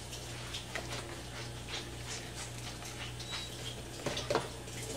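A spoon stirring a thin fermented fish dipping sauce in a bowl: wet swishing with many light clicks of the spoon against the bowl, over a steady low hum. A couple of louder knocks come about four seconds in.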